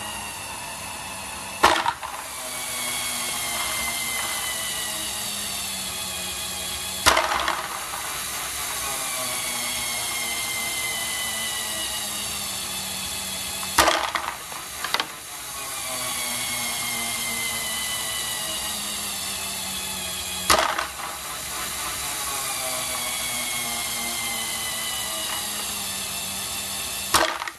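LEGO Great Ball Contraption popping module running on its electric motor and gear train: a steady whine that slowly falls in pitch, broken five times, about every six to seven seconds, by a sharp snap and a rattle of small plastic balls as the mechanism throws a batch of balls up.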